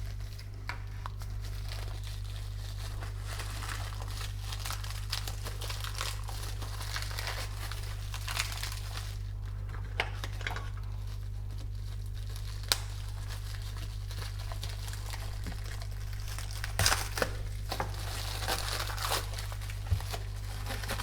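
Packaging of an LED strip light being opened by hand: plastic crinkling and tearing, with scattered sharp clicks of handling, over a steady low hum.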